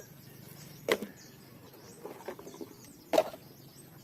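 Two sharp knocks, about a second in and again a bit after three seconds: toys being dropped into a container as they are gathered.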